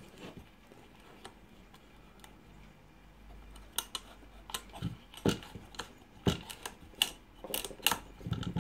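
Recoil starter of a KF340 engine being turned and handled by hand. It is quiet at first, then from about three seconds in come irregular light metallic clicks and taps from its pulley and three-pawl mechanism.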